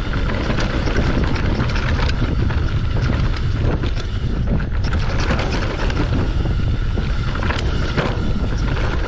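Mountain bike descending a rough dirt trail at speed: wind buffeting the microphone over the tyres' rumble, with frequent clatters and knocks as the bike hits rocks and bumps.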